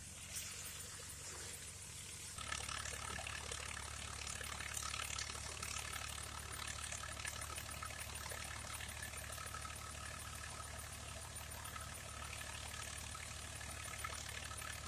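Farm machinery running steadily, a low engine hum with clattering mechanical noise over it, getting louder about two and a half seconds in and then holding steady.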